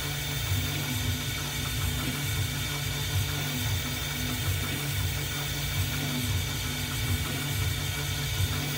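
Roland MDX-40 benchtop CNC mill, with its fourth (rotary) axis, cutting a jeweler's wax ring blank with a small end mill. The machine runs steadily, with a constant high whine over a low, uneven hum.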